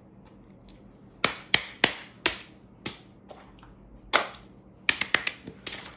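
Fidget toy being clicked and popped: about a dozen sharp, uneven pops, starting about a second in and coming quicker near the end.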